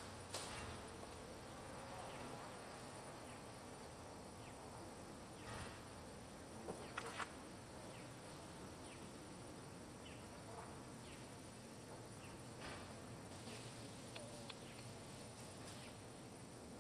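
Faint, steady insect buzzing with a thin high whine, broken by a few soft clicks, a small cluster of them about seven seconds in.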